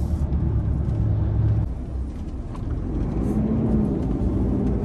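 Volvo FH lorry's diesel engine running at low speed, heard from inside the cab during a slow manoeuvre. The engine eases off about a second and a half in and picks up again about a second later.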